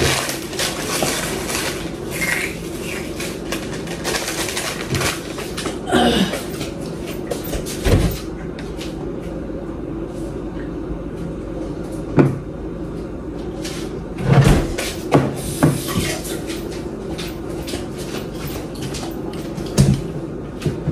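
Off-camera household clatter: scattered clicks and several louder knocks and bangs, like cupboards opening and closing and dishes being handled, over a steady background hum.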